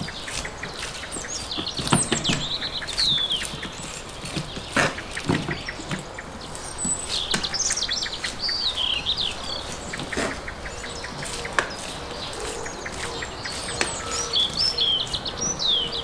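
Songbirds chirping and singing in short spells, over a rapid run of knife strokes shaving cooked doner meat off a vertical skewer, with a few sharp knocks.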